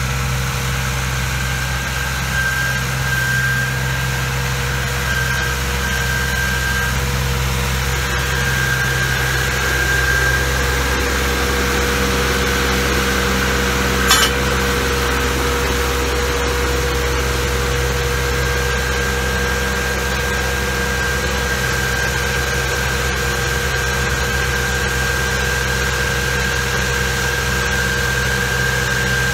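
Engine of a tracked utility trencher running steadily, with a steady high whine over its drone. There is one short sharp click about halfway through.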